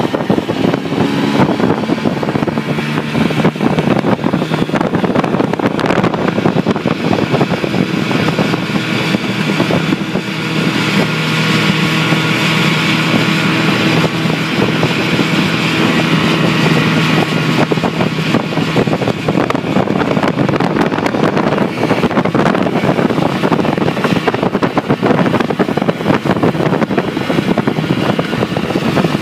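Mercury 650 two-stroke outboard motor running steadily at speed, mixed with wind buffeting the microphone and rushing water from the wake. The engine's steady note is plain in the first half and sinks into the wind noise later on.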